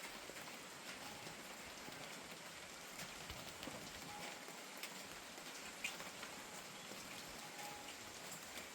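Steady light rain falling, a soft even hiss with scattered individual drops striking a surface.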